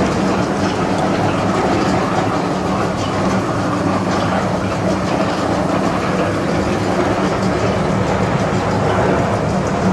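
Coconut oil mill machinery crushing dried copra, running steadily with a constant mechanical hum and rattle from its motor and belt drive.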